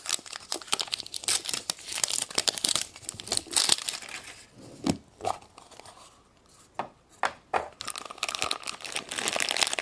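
Crinkly wrapping of a surprise egg being torn and crumpled open by hand: dense crackling with sharp clicks, thinning to scattered clicks midway and crinkling again near the end.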